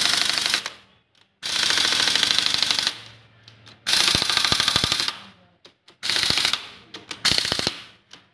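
Impact wrench, set to low power, hammering the head cover nuts of a scooter engine tight: five short bursts of rapid rattling with short pauses between.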